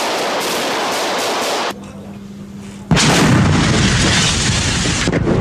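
Heavy weapons fire in combat field recording: a rough, loud hiss of noise, a short quieter stretch with a low hum, then a sudden loud blast a little under three seconds in, followed by continuing heavy, rumbling bangs.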